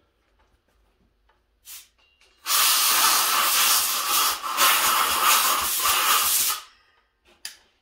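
Compressed air from an air compressor's blow gun blowing grinding chips out of a chainsaw cylinder: a short puff about a second and a half in, then a steady hiss of air for about four seconds, briefly dipping midway.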